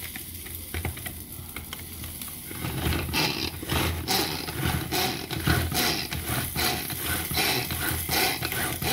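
Hand-pulled cord food chopper cutting serrano chiles, cilantro and onion. From about three seconds in, its cord is yanked over and over, about two pulls a second, each pull whirring the blades through the vegetables in the plastic bowl.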